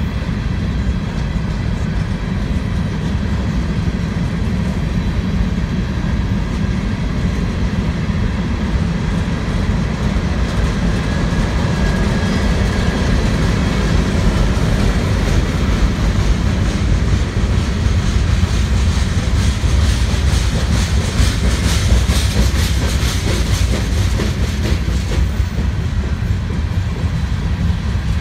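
Freight train's hopper cars rolling past, steel wheels on rail making a steady heavy low rumble, with a run of sharper clicking about three-quarters of the way through.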